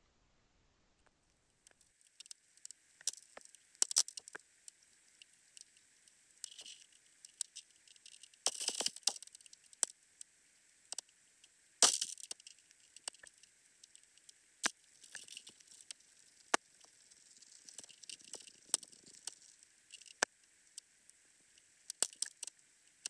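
Underwater camera audio: irregular sharp clicks, ticks and crackles over a faint hiss, beginning after about two seconds of near silence, with a dense cluster of crackles and then a single louder crack near the middle.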